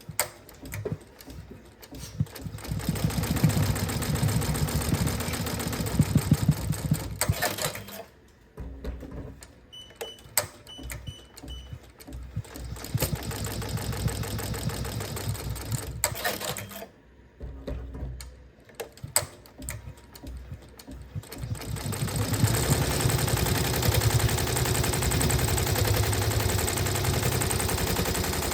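Sewing machine stitching at speed in three runs, stopping in between with a few clicks, and giving three short high beeps during one pause.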